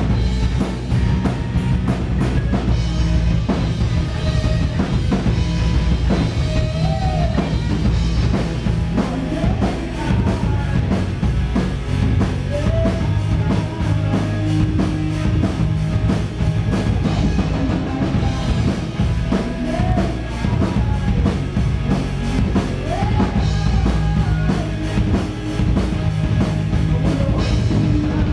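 Live rock band playing loud: electric guitars over a drum kit with a steady beat, with a few short pitch-bending lines over the top.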